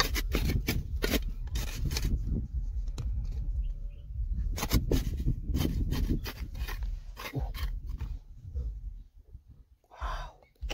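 Hand tool digging into stony ground: a run of irregular scrapes and knocks, a few a second, over a low rumble, thinning out near the end.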